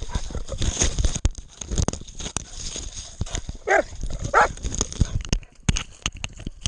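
A hunting dog barks twice about halfway through, two short yelping barks. Under them run constant irregular thumps and rustling, the knocking of a camera worn on a running dog.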